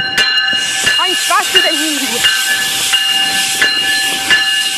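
Hurried footfalls on a concrete station platform, a thud about every 0.7 s, over a steady hiss of heavy breathing from someone running. A steady high whine sounds throughout.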